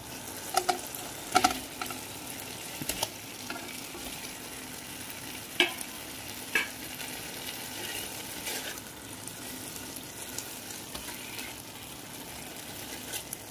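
Butter-garlic sauce thickened with flour and chicken stock sizzling gently in a kadai while a silicone spatula stirs and scrapes through it, with seared chicken pieces going in and being turned. Several sharp knocks and clicks of spatula and chicken against the pan stand out over the steady sizzle, the loudest about halfway through.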